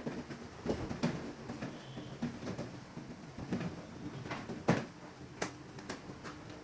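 Irregular knocks and clicks of hands and utensils at kitchen work, with a sharper knock about two-thirds of the way through.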